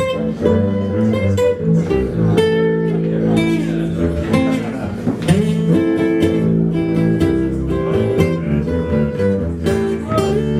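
Acoustic guitar and upright double bass playing together, the guitar strummed and picked over the bass line.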